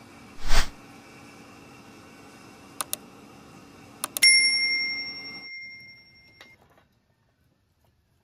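Subscribe-button sound effect: a quick whoosh, then a double mouse click, another pair of clicks and a bell ding that rings and fades away over about two seconds. A steady low background noise runs underneath and cuts off about five and a half seconds in, leaving silence.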